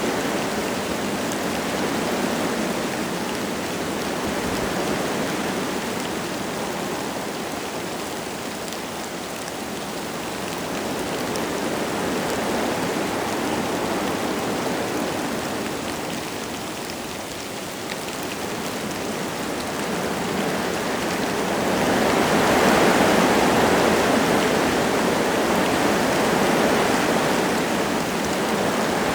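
Wind gusting through forest trees with light rain falling, a rushing noise that rises and falls in slow swells, strongest in a long gust about three-quarters of the way through.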